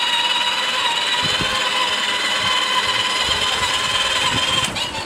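Children's battery-powered ride-on quad bike's electric drive motor and gearbox whining steadily at a constant pitch as it drives, cutting off about four and a half seconds in.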